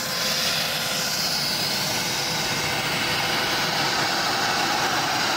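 The gas-producer jet engine of a turboshaft go-kart, run without its power turbine, running steadily with an even rush of jet noise.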